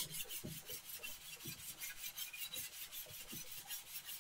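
Cast-iron sole of an Ohio No. 102 block plane being lapped on wet wet/dry sandpaper: a steady gritty scrubbing made of quick, even back-and-forth strokes, several a second.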